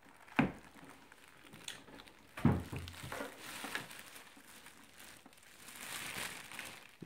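Packaging and a plastic appliance being handled: crinkling and rustling, with two sharp knocks, one about half a second in and one about two and a half seconds in.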